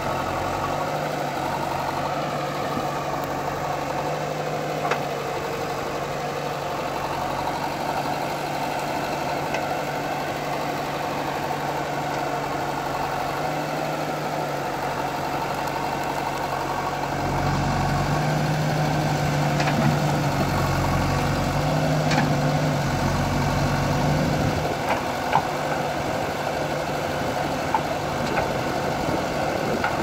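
JCB backhoe loader's diesel engine running steadily, its note rising and getting louder for several seconds past the halfway point as the digging arm works, with a few sharp knocks near the end.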